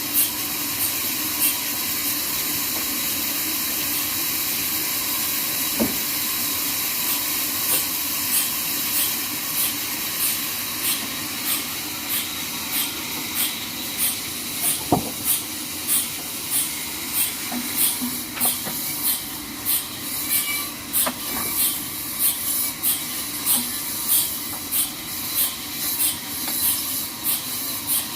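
Band sawmill blade running through a log: a steady hissing cutting noise with a thin high whine. From about eight seconds in, a light regular tick comes a little more than once a second, with a few sharp clicks.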